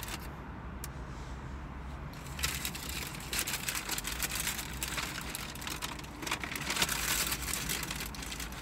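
Paper wrapper crinkling and rustling as a messy burger is handled and eaten, in quick irregular crackles starting about two and a half seconds in, over a low steady hum inside the car.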